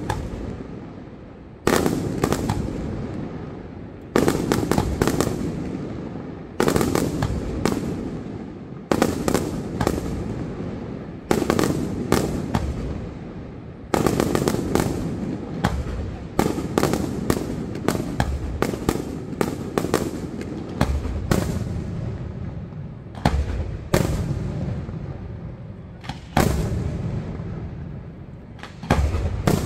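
Aerial firework shells bursting in steady succession, a sharp bang about every two and a half seconds. Each bang is followed by a few quick pops and a low rumbling echo that dies away.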